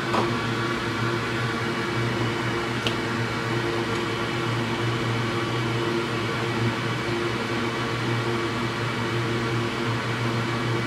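Steady machine hum with a fan-like hiss, and two faint ticks, one at the start and one about three seconds in.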